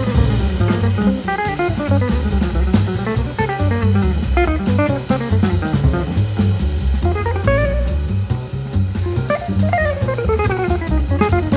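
Instrumental background music: quick guitar runs rising and falling over bass and drums keeping a steady beat.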